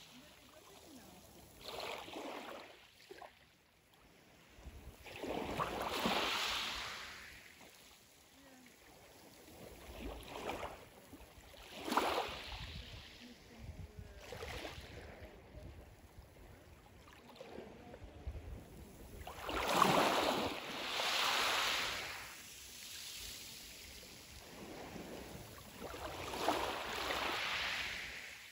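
Small waves washing up onto a pebble shore every few seconds, each wash a hiss lasting a second or two, the loudest ones with a sharper splash in them.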